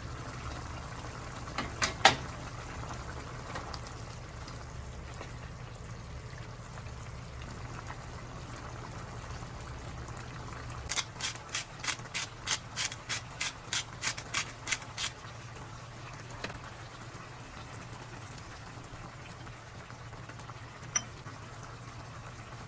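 A pan of sautéed chayote with shrimp and ground meat simmering steadily in its liquid. Midway there is a run of about sixteen sharp clicks, roughly four a second, and a couple of louder clicks come early on.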